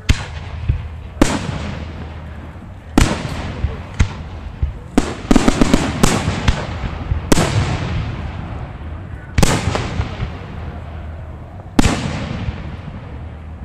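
Aerial firework shells bursting: a series of sharp bangs every second or two, each trailing off in a long fading rumble, with a quick run of crackling reports about five to six seconds in.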